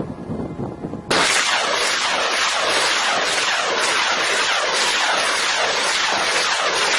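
A multiple rocket launcher firing a salvo: after about a second of low wind rumble, a sudden loud, continuous rushing roar of rocket motors sets in and keeps going as launches ripple off one after another.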